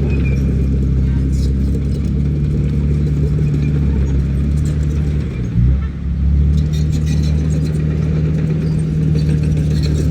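Komatsu D31PX crawler bulldozer's diesel engine running steadily, with a brief dip and shift in pitch about five and a half seconds in.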